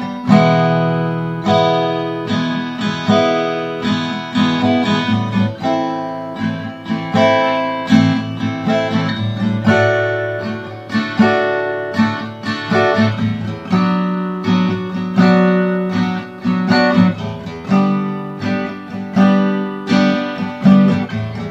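Cort AD810 OP steel-string dreadnought acoustic guitar strummed through a run of chords, with repeated strums and frequent chord changes. It sounds bright and clear.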